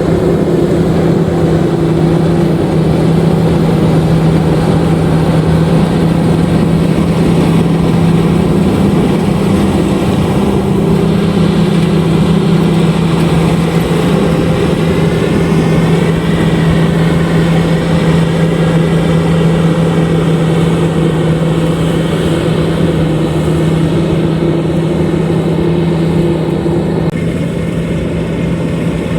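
LOVOL RG130EVO rice combine harvester running steadily, a constant engine drone with a faint wavering whine in the middle. The sound turns slightly duller near the end.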